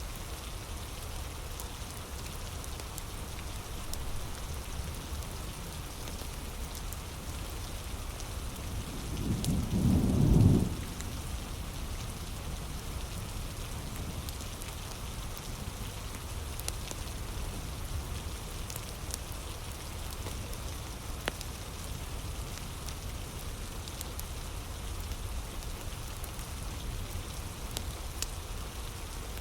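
Steady heavy rain with scattered sharp crackles from a wood fire. A low rumble of thunder swells about nine seconds in, peaks, and cuts off around eleven seconds.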